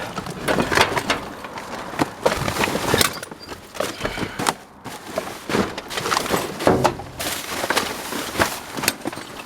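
Debris being dug through and shifted in a dumpster: irregular clatter, knocks and rustling of scrap and trash being moved by hand.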